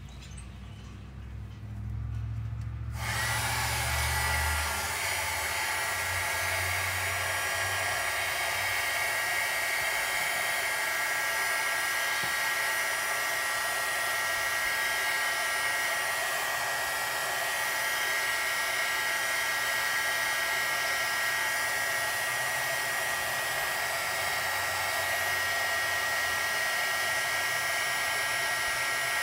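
Handheld heat gun switched on about three seconds in, then running steadily: rushing air from its fan with a steady high whine.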